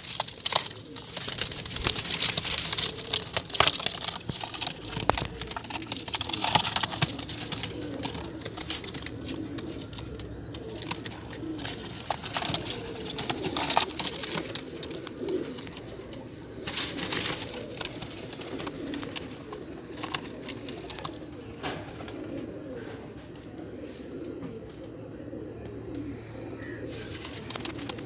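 Several domestic pigeons cooing continuously, with scattered brief scuffs and rustles as the birds shift about.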